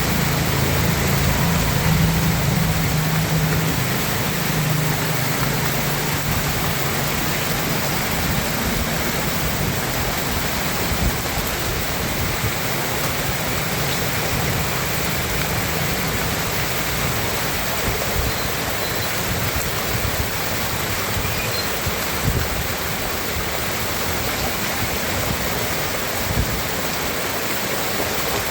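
Steady, loud rush of water from a torrential downpour and floodwater, running without a break, with a low hum underneath for the first several seconds.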